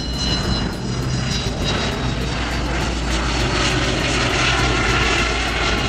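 Beriev Be-200ES amphibious jet flying past low, its twin turbofan engines making a steady jet noise over a low rumble. A thin high whine fades out over the first second or two.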